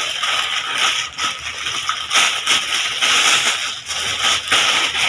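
Clear plastic bag crinkling and rustling in uneven bursts as a packed shirt is handled and pulled out of it.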